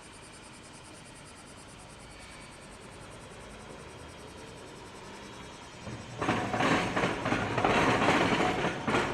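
Faint steady background, then about six seconds in a train passes close by, loud, its wheels clattering on the rails.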